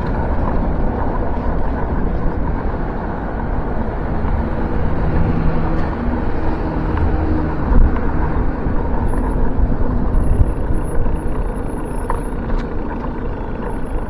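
Steady rush of wind and road noise from riding a bicycle along a city cycle path, with motor traffic passing.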